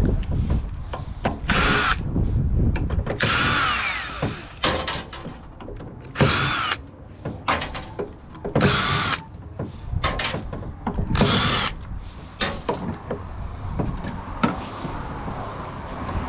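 Power drill run in short bursts, about nine times, each under a second with a whine that rises and falls. Knocks and clatter of metal parts come between the bursts.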